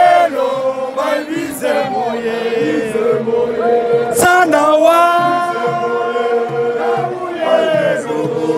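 Football supporters singing a chant together, with long held notes from voices close to the microphone. A brief knock of the phone being bumped about four seconds in.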